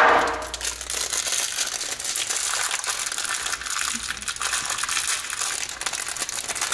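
Plastic packaging of an oil filter kit crinkling and crackling steadily as it is handled and opened to get at the replacement O-ring and filter.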